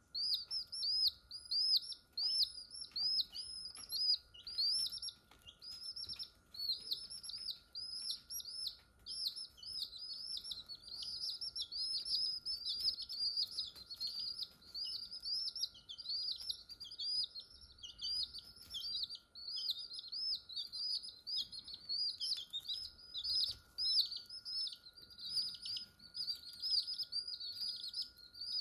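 Several newborn chicks peeping without a break: rapid, high-pitched, overlapping cheeps, each a short arched note.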